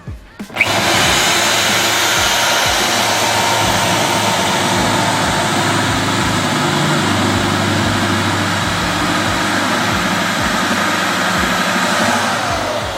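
A loud, steady whirring and rushing machine noise that starts about half a second in, holds level for about twelve seconds, then eases off near the end.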